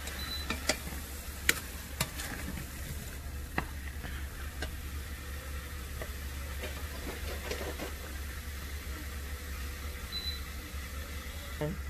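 Plastic spatula stirring chunks of seasoned raw chicken and onion in a stainless steel pot, with scattered light clicks of the spatula against the pot over a faint steady hiss and a low hum.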